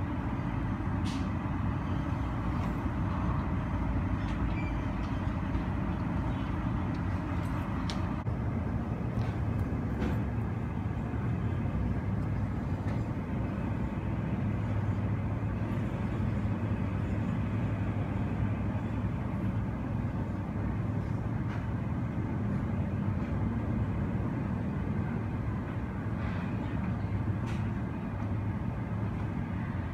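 Steady low rumble of airport apron noise heard through terminal glass: engines and ground vehicles blending into one continuous drone, with a few faint ticks.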